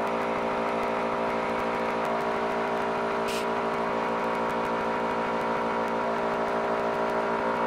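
Tormach 770 CNC mill's spindle running steadily as a 1/16-inch uncoated carbide end mill takes light finishing passes in a steel Glock slide, a whine of several held tones over a hiss of mist coolant. A brief hiss about three seconds in.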